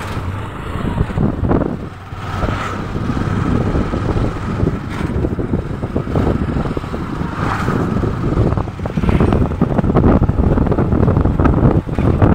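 A tricycle's motorcycle engine running as the motorcycle-and-sidecar rides along the street, with road noise and wind buffeting the microphone.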